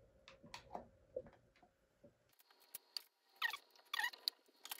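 Faint, scattered clicks and light scrapes of small metal hand tools being handled. A denser cluster of metallic clicks and a scrape comes about three and a half seconds in, as a screwdriver bit is worked against a bit holder.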